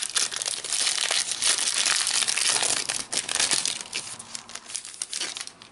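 Trading card pack wrapper being torn open and crinkled by hand, a dense crackling that dies down near the end.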